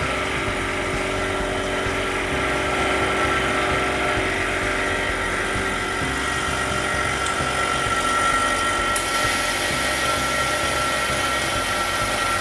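Edge vacuum laminating machine running a lamination cycle: a steady mechanical drone with a constant high whine. About nine seconds in, a hiss in the high range gets louder.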